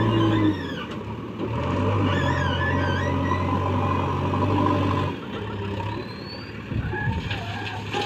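Diesel engine of a JCB backhoe loader working as the front bucket scoops stone and lifts it. The engine note drops about half a second in, picks up again a second later, and falls off once more about five seconds in.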